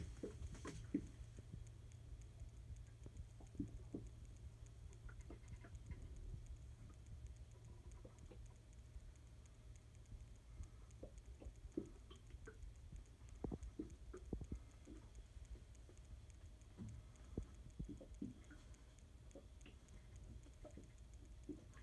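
Faint scattered taps and knocks of footsteps and hand-held camera handling moving through a boat cabin, over a steady low hum.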